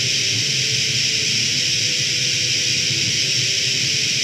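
Intro of a heavy metal song: a steady hiss with quiet guitar underneath.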